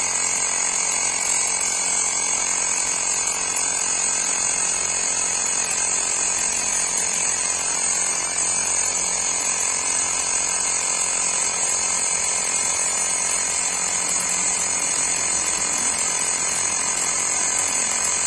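Xiaomi portable electric tyre inflator running steadily, pumping air into a motorcycle tyre that had been let fully down, with a continuous even motor-and-pump sound.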